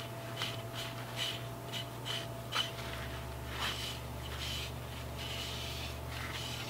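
Cloth rag rubbing shellac onto a maple saw handle, a run of short wiping strokes.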